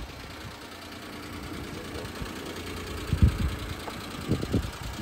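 Daihatsu Hijet kei truck's small 660 cc three-cylinder engine idling steadily. There are a few low thuds about three and four and a half seconds in.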